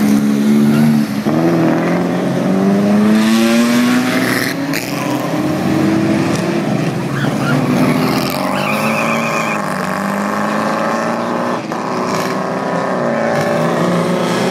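Engines of pre-war vintage racing cars passing one after another, each rising in pitch as it accelerates away, over the hum of more cars running.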